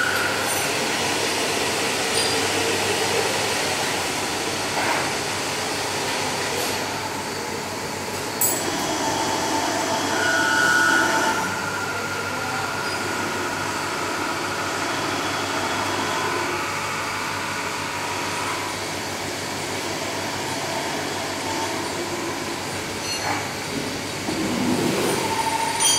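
CNC lathe turning a steel camshaft: steady machine running and cutting noise, with a high whine that comes and goes. Near the end the lathe's guard door is pulled open.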